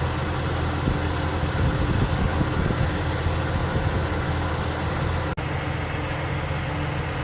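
Steady low drone of an idling engine, with a brief dropout about five seconds in.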